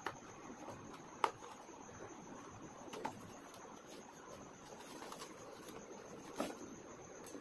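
Cardboard box and plastic-foam packaging being handled and opened: a few short sharp taps and crinkles, the loudest a little over a second in, over a faint steady hiss.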